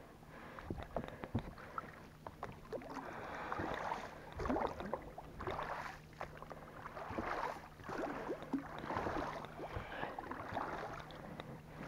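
Water splashing and swishing against an inflatable boat in irregular surges, over a faint steady low hum.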